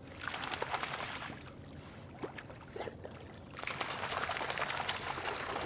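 Water splashing and sloshing in two spells, about a second near the start and about two seconds near the end, with many small crackling clicks.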